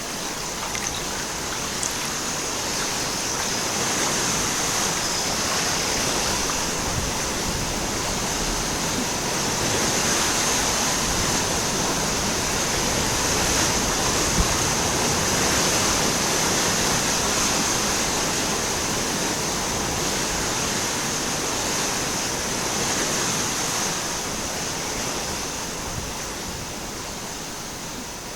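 Forest stream water rushing in a steady hiss. It grows a little louder toward the middle and eases off near the end.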